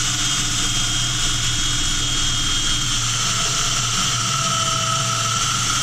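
A woodworking power tool running steadily at full speed, a loud even whir with a faint steady whine in it.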